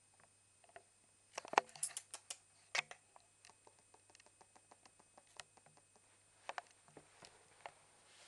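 West Highland white terrier puppy's claws clicking and pattering on a tiled floor as it walks about, with a run of louder clicks between about one and a half and three seconds in, then lighter, scattered ticks.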